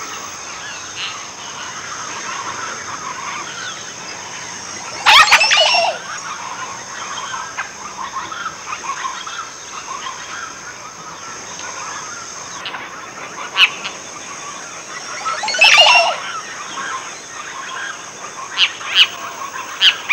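Montezuma oropendolas calling: two loud calls about five and sixteen seconds in, with shorter calls and softer chatter between, over a steady high buzz.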